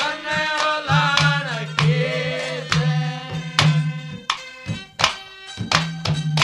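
Live Haryanvi ragni accompaniment without singing: a melody instrument playing gliding phrases over quick hand-drum strokes, with a deep resonant drum tone sounding again and again.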